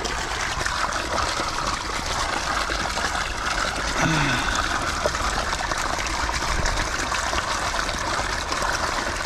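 Water pouring steadily over rocks into a small backyard pond from its waterfall, an unbroken splashing and trickling.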